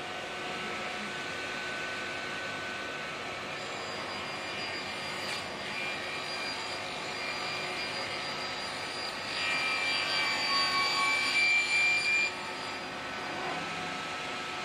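CNC cutting machine with a circular saw blade running, a steady mechanical hum with a thin high whine. About two thirds of the way through it gets louder for about three seconds, with a stronger high whine, then drops back abruptly to the steady running sound.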